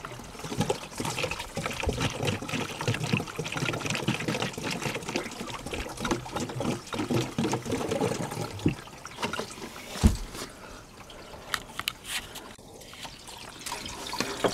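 Pink non-toxic antifreeze gurgling and trickling as it is poured down a hose into the thermostat housing of a Volvo Penta 5.0 GXi V8 marine engine, to flush the drained cooling system. A single thump comes about ten seconds in, and the liquid sounds quieter after that.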